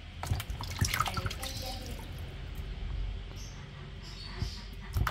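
Water splashing and dripping as pieces of raw fish are handled and rinsed in a basin of water and lifted out, with scattered small splashes, several in the first second and more near the end.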